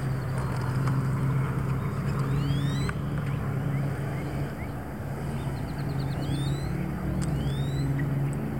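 Electric trolling motor humming steadily. Birds call over it with short rising chirps, repeated several times, and one quick chattering series a little past halfway.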